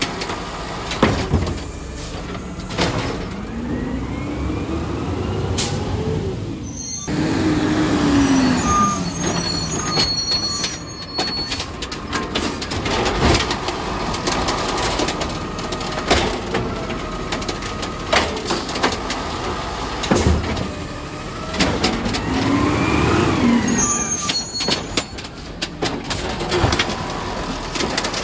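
Automated side-loader garbage truck collecting carts. Twice the engine revs up and back down as the hydraulic arm lifts and dumps a cart, with knocks and bangs from the cart and arm. Air-brake hisses come in between, over the steady running of the truck.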